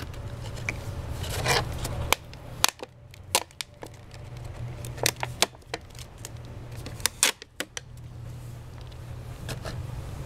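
Thin PET plastic of a cut-down gallon water jug crackling and snapping as it is handled, with a string of sharp, irregular pops as the piece is pressed and a trimmed strip of plastic is pulled away.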